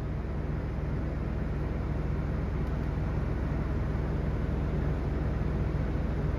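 Bulldozer's diesel engine running steadily with a low, even drone that grows a little louder through the first part.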